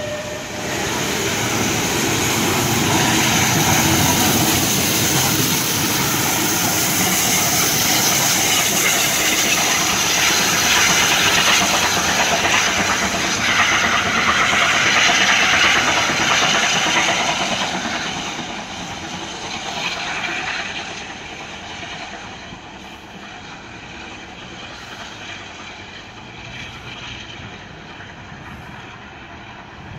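Steam locomotive 34052, a Bulleid light Pacific, running past with its train: a loud, steady rush of running noise that begins to fade at about 17 seconds as the train draws away.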